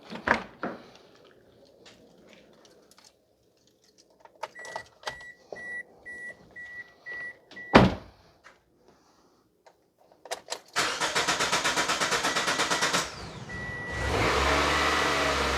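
The 2005 Toyota Corolla's 1.8-litre four-cylinder engine is cranked by the starter for about two seconds, catches, and settles into a steady idle near the end. Before it, scattered clicks and a loud knock, with a run of short high electronic beeps about halfway through.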